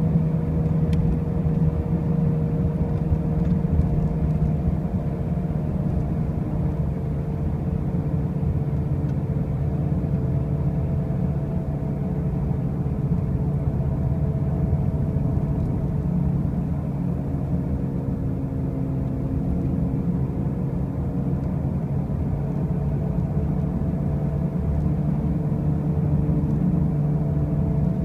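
2005 Pontiac Grand Prix driving with a steady low drone over road noise, and fainter humming tones that slowly sink and rise in pitch. This is the loud noise when driving that remains even with brand-new wheel bearings and new tires, and its cause is unknown to the owner.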